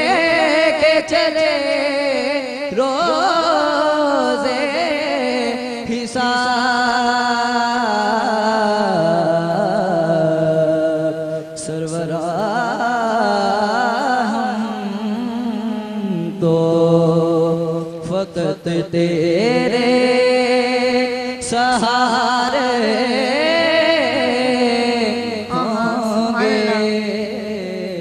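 A teenage boy singing a devotional Urdu kalam solo into a microphone, in long, richly ornamented phrases with short breaks between lines.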